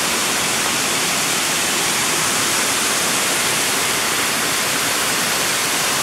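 Steady rushing of a nearby waterfall: an even, unbroken hiss of falling water.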